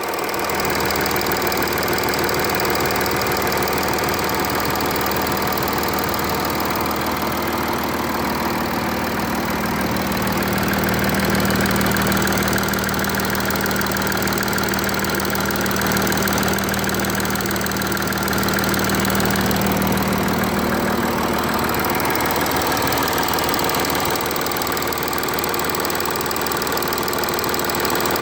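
An engine running steadily at idle with a constant rattling clatter.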